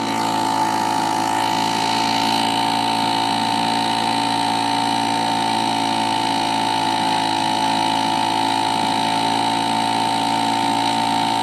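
Small outboard motor running at a steady speed, pushing a dinghy along under way.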